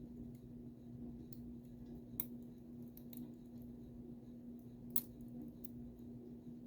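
Faint small metallic clicks and ticks of tweezers and tiny lock pins as the driver pins are taken out of an American Lock 1100 padlock's cylinder, with two sharper clicks about two and five seconds in. A steady low hum runs underneath.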